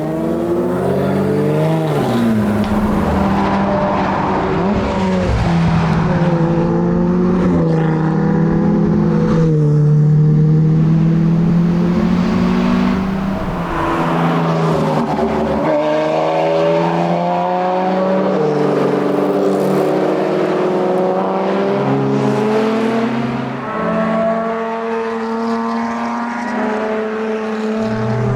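Lotus Evora GT410 Sport's supercharged 3.5-litre V6 being driven hard, its engine note climbing with the revs and then dropping at each gear change, over and over, with a few quick falls and rises as it shifts down and back up.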